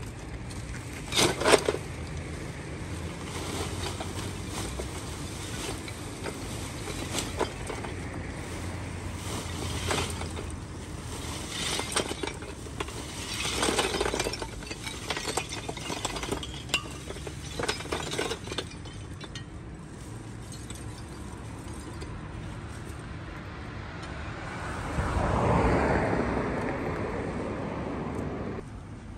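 Lumps of charcoal tipped from sacks into a chain-hung metal pan, clattering and clinking in several short bursts, over a steady low street rumble.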